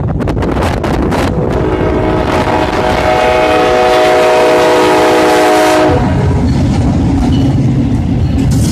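Diesel freight locomotive sounding its air horn in one long chord, which cuts off suddenly about six seconds in, over the steady rumble of its engine as it rolls through a grade crossing and passes close by.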